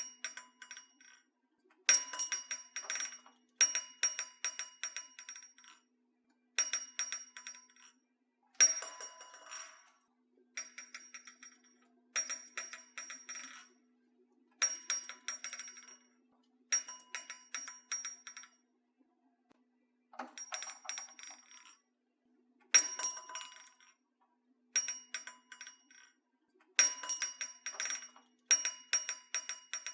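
Doorbell ringing over and over in short bursts of metallic jingling, each about a second of rapid clinking strikes, roughly one burst every two seconds.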